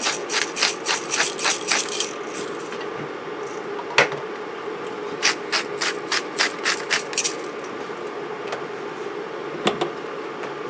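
Hand-twisted pepper grinder clicking rapidly, about five clicks a second, in two runs: one ending about two seconds in and another from about five to seven seconds. A single sharp knock comes between them, and a couple more near the end.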